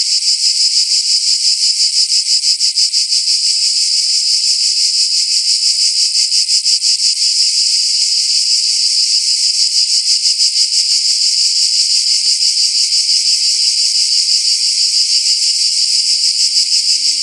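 A chorus of cicadas calling: a loud, continuous shrill buzz that pulses rapidly.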